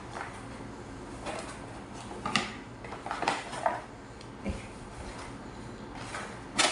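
Packaging of a hair curler being handled and opened by hand: scattered clicks, taps and rustles, a few of them sharper than the rest.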